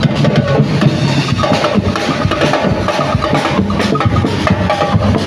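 Music with a drum beat and percussion.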